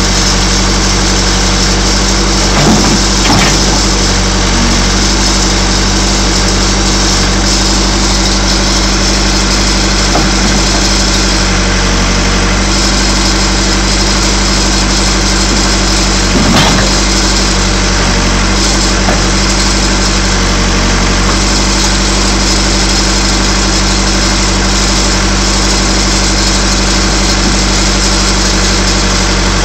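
The four-cylinder diesel engine of a Case 580 Super E backhoe running steadily, with a few short knocks, the sharpest about 16 seconds in.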